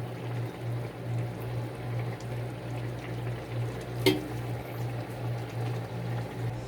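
Kitchen cooking sounds: the chicken jjamppong bubbling and being stirred in the pot over a steady, pulsing low hum, with one sharp clink of a utensil about four seconds in.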